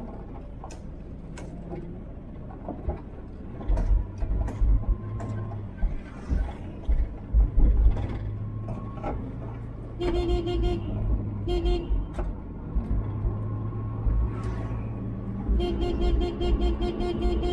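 Inside a moving minibus taxi: the engine runs with a steady low hum and some low rumbling bumps. A vehicle horn toots in rapid pulsing beeps about ten seconds in, briefly again, and once more near the end.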